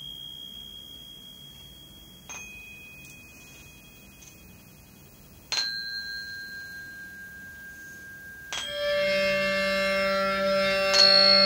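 Ambient soundscape music: single clear tones struck a few seconds apart, each ringing on at one steady pitch and slowly fading. About three quarters of the way through, a louder, fuller chord over a low drone swells in.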